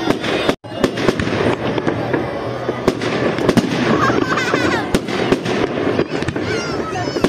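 Fireworks display: aerial shells bursting overhead in a rapid, irregular series of sharp bangs.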